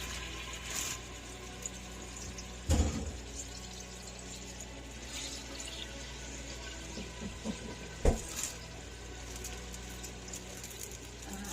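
Kitchen tap running water into a sink, with two sharp knocks, about three seconds in and about eight seconds in.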